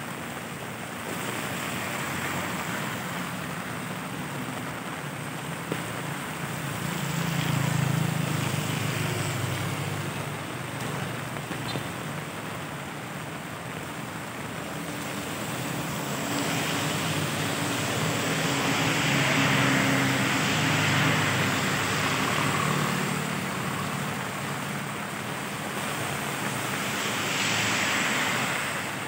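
Steady rain falling on pavement, with cars and motorbikes passing on the wet road: their tyre hiss and engines swell up and fade away several times, a third of the way in, through the middle and again near the end.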